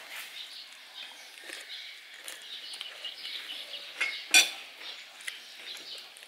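Spoons and ceramic plates clinking as food is handled at a meal, with scattered light clinks and two sharp ones a little after four seconds in, the second the loudest.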